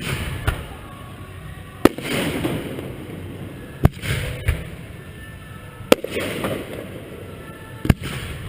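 Fireworks show: aerial shells bursting with a sharp bang about every two seconds, each followed by a crackling hiss, with a few smaller pops in between.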